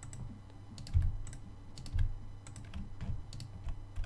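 Computer keyboard keystrokes and mouse button clicks: scattered, irregular taps, with heavier thumps about one and two seconds in.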